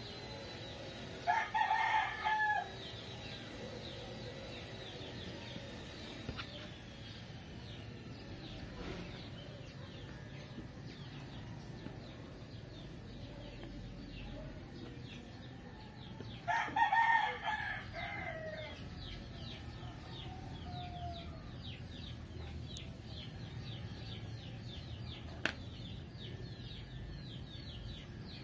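A rooster crowing twice, once near the start and again about halfway through, each crow lasting a second or so. A single sharp click comes near the end.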